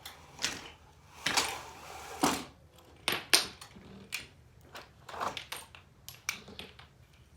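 Irregular clicks, rattles and short rustling swishes of objects being handled, with one sharp knock about three seconds in.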